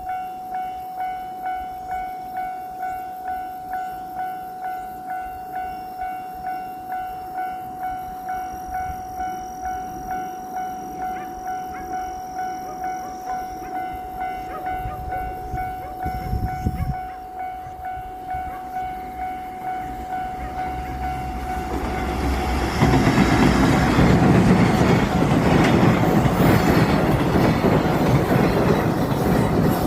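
Japanese level-crossing warning bell ringing in an even, steady pulse, a little under two strikes a second. Then an EF210 electric locomotive hauling a freight train rumbles up and passes close by, its wagons clattering loudly over the rails from about two-thirds of the way in and drowning out the bell.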